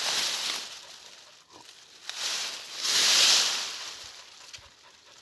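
A person breathing heavily close to the microphone: slow swells of breathy hiss, one near the start and another about three seconds in.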